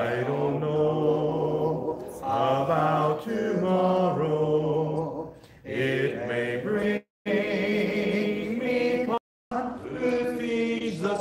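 A man singing a slow hymn without accompaniment, holding long notes. The sound cuts out briefly twice in the second half.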